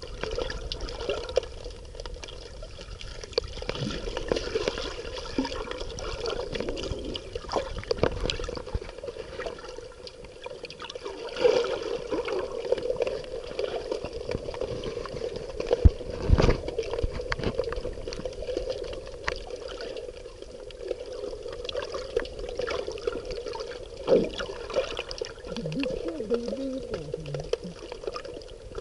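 Sea water sloshing, trickling and gurgling, as when swimming or snorkelling in the sea. A single thump about sixteen seconds in is the loudest sound.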